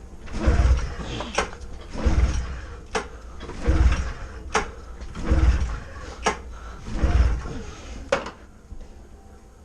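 A 2002 Polaris RMK 600 two-stroke twin is cranked over by its recoil starter about six times in a steady rhythm, to build pressure on a compression gauge for the PTO cylinder. Each pull is a short low rumble of the engine turning over, followed by a sharp click.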